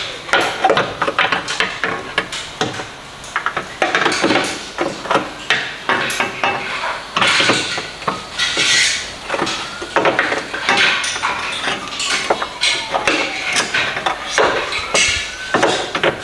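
A steering rack (rack and pinion) is being worked into place under a car, with irregular metal clanks and knocks as it bumps against the subframe and brackets. In the second half a siren wails faintly, gliding down in pitch.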